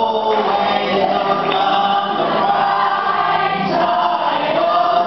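Live singing: a man sings a song at the microphone, holding long notes that bend in pitch, to his own ukulele accompaniment.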